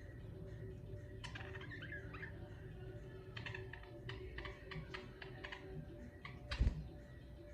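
Pet budgerigars chirping and chattering in short, clicky bursts over a steady low hum, with one loud thump about six and a half seconds in.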